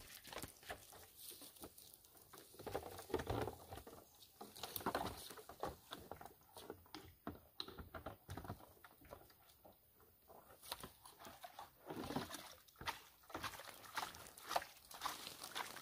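Scuffing footsteps and the small knocks and rustles of someone moving about on dry, debris-strewn ground while handling a plastic bucket: an irregular run of short clicks and scuffs.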